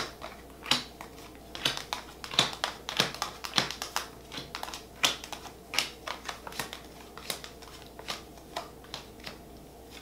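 Tarot cards being shuffled and laid down on a table: a run of irregular sharp clicks and taps, a few a second.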